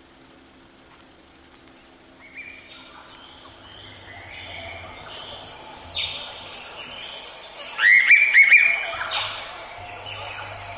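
Bush bird chorus that fades in about two seconds in: scattered bird calls over a steady high-pitched drone, with a run of four loud, quick calls about eight seconds in.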